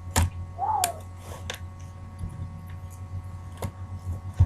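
Scattered sharp clicks and light knocks of loose laptop parts being handled and set down, the loudest about a quarter second in and just before the end, over a steady low electrical hum.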